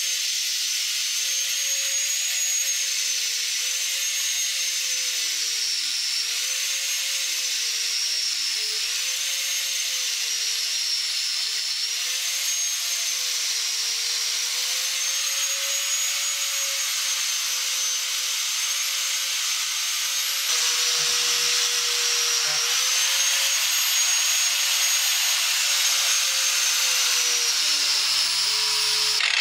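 Angle grinder with a thin cutting disc running continuously as it cuts through an onion clamped in a vise. Its motor pitch wavers and dips again and again over a steady hiss, and it gets slightly louder about two-thirds of the way through.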